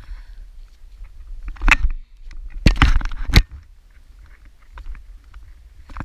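Sneaker footsteps crunching and scuffing on a dry, gritty rocky trail, with a loud scrape about two seconds in and a burst of several more near the three-second mark, over a low steady rumble.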